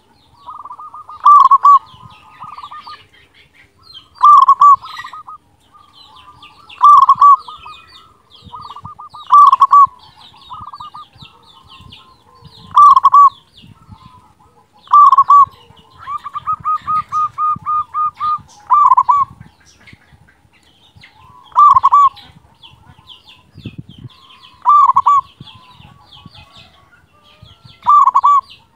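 Zebra dove (perkutut) cooing its song over and over, a loud phrase about every two and a half to three seconds. Partway through, one phrase carries a quick run of about ten even notes. Fainter high chirps come between the phrases.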